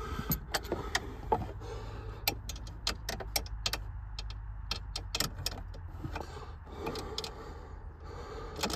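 Hand ratchet on a long socket extension clicking in quick, irregular strokes as it turns a bolt holding the passenger airbag under the dashboard.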